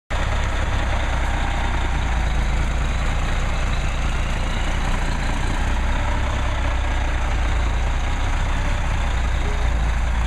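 A concrete mixer truck's diesel engine running steadily close by, loud and low-pitched.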